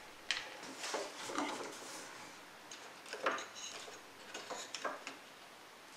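Scattered light clicks and wooden knocks: a small wooden box and its parts being handled and set down on a workbench.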